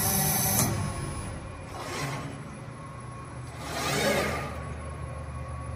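CNC press brake running with a steady low motor hum. The sheet metal scrapes against the tooling at the start, and a whirring swell rises and falls about four seconds in as the machine cycles through a bend.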